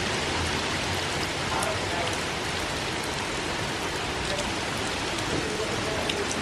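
Heavy hurricane rain falling steadily, an even hiss of rain on surfaces.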